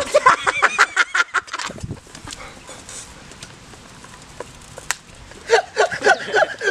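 Several people laughing in quick, choppy bursts at the start, and again in a second burst near the end, with a quieter stretch between.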